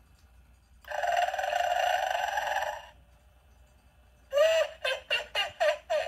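Gemmy Snoring Witch animatronic playing its recorded snoring through the toy's speaker. About a second in there is one long snore lasting about two seconds. After a pause, a quick run of about six short pitched sputters follows near the end.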